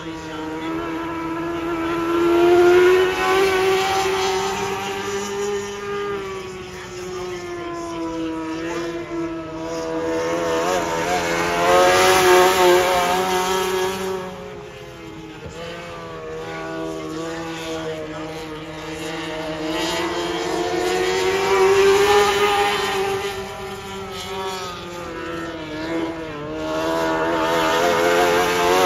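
Junior sportsman dirt-track race cars' engines running at racing speed, their pitch rising and falling as the drivers work the throttle around the oval. It swells loudest several times as the cars come past.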